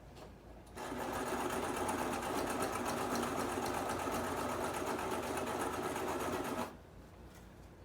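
Brother electric sewing machine running steadily at speed, stitching a hair weft onto a wig cap: a rapid, even run of stitches that starts about a second in and stops sharply about six seconds later.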